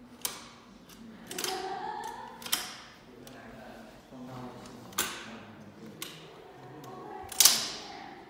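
Clicks and clacks of an electric wheelchair's metal frame and removable parts being handled as it is taken apart by hand. There are about five sharp knocks, the loudest near the end, and a rising scrape or squeak about a second in.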